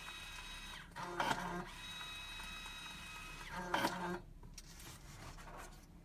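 SUPVAN LP5125M label printer running its tape-feed and print mechanism with a steady whine of several fixed tones. Two louder clattering spells break in, one about a second in and one near four seconds, and after that the mechanism goes quiet.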